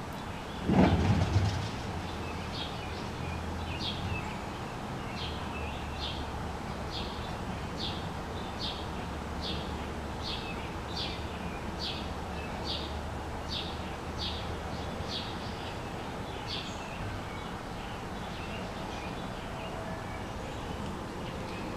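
A bird calling with a short, high chirp repeated over and over, about one and a half times a second, stopping about three-quarters of the way through. A steady low hum runs underneath, and a brief loud noise comes about a second in.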